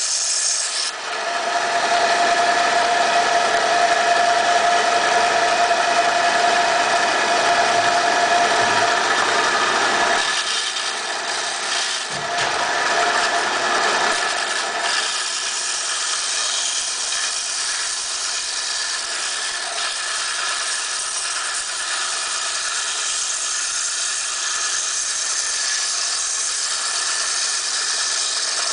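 Inland DFS-100 frag band saw running and cutting through coral fed by hand, a steady mechanical hiss with a clear whine through roughly the first nine seconds.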